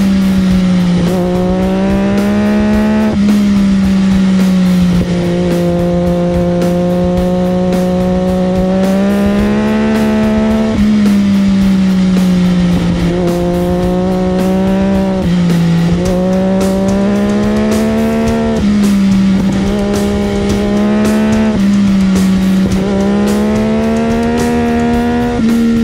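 MV Agusta sport bike's engine at high revs, heard from onboard. Its pitch climbs slowly and drops back sharply every two to five seconds.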